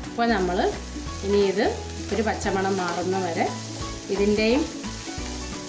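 Sliced onions and shallots frying in coconut oil in a nonstick pan, stirred with a wooden spatula. A steady sizzle runs under repeated scraping strokes of the spatula, some of them squeaking.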